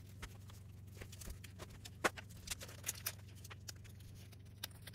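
A taped-up mail-order package being opened by hand: faint, irregular crackles and snaps of scotch tape and packing material being pulled apart, with one sharper snap about two seconds in.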